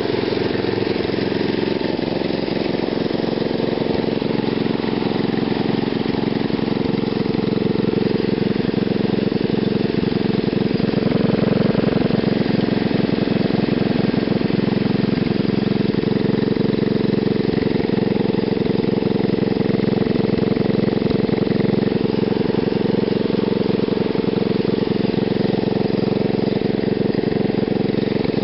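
Small engine running steadily on fuel vapour fed through a homemade GEET fuel processor, holding one even speed throughout.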